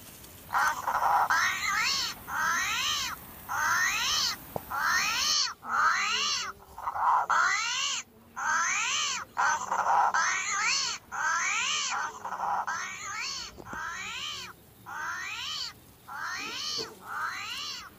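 An animal's meow-like cry, repeated over a dozen times at about one a second. Each cry rises and then falls in pitch, and the cries grow somewhat quieter toward the end.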